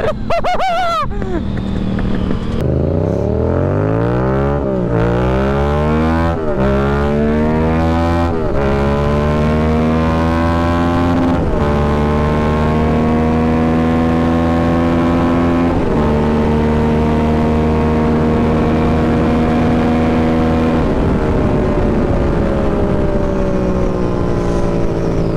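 2018 Yamaha MT-09's 847 cc inline-three engine accelerating hard up through the gears, its pitch rising and dropping back at each of several upshifts in the first dozen seconds. It then holds a steady high-speed cruise in top gears, and the throttle is rolled off about 21 seconds in, over a constant rush of wind noise.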